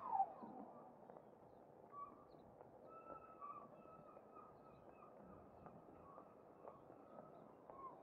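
Quiet outdoor street ambience with a few faint, short bird chirps, and a brief falling squeak right at the start.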